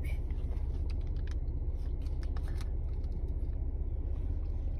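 Low steady rumble inside a car's cabin, with scattered faint small clicks and smacks while a toddler licks powdered candy off her finger and handles the paper packet.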